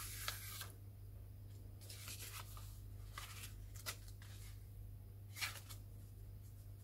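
Faint rustling of paper as a small handmade paper notebook is handled, opened and its pages flipped, in a few short brushes and flutters. A low steady hum runs underneath.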